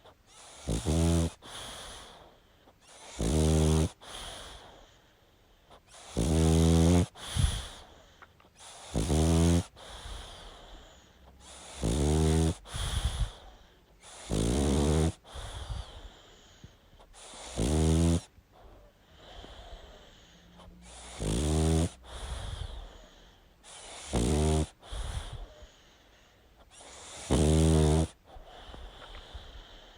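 A sleeping pug snoring loudly and regularly, about ten snores at one every two to three seconds, some followed at once by a second, shorter snort, with quiet breathing between them.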